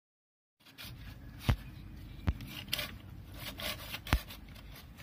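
Small hand saw cutting through a green branch: repeated rasping strokes as the blade works back and forth in the wood, with three sharp clicks standing out.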